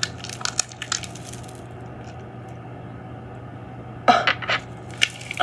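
Homemade slime being squished and handled, giving a few short wet clicks and pops, with a brief louder squelch about four seconds in.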